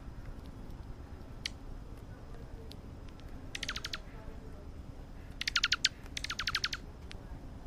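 Small birds at a feeder chirping in three quick runs of sharp, falling notes, each run about half a second of rapid chirps, over a steady low rumble.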